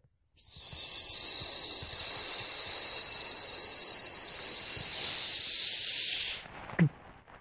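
Intro sound effect: a steady high hiss, like rushing air, that starts just after the beginning and cuts off after about six seconds. It is followed near the end by one short sound that falls quickly in pitch.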